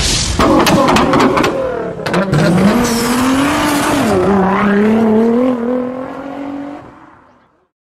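Engine revving sound effect: one pitched motor note that rises, dips about four seconds in, then slowly climbs again, with sharp cracks and bangs over the first two seconds. It fades out about seven seconds in.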